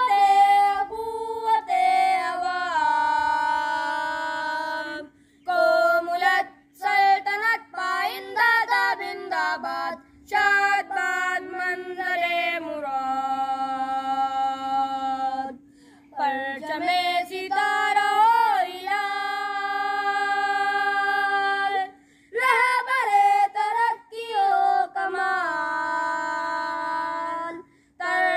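Young voices singing a tarana, a patriotic Urdu anthem, without instruments, with long held notes and short pauses between phrases. A steady low hum runs underneath.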